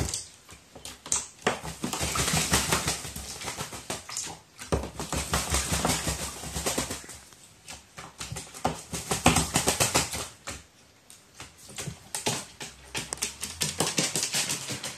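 Crow bathing in shallow water in a plastic tray: several bouts of rapid splashing and wing-fluttering, each a couple of seconds long, with short pauses between.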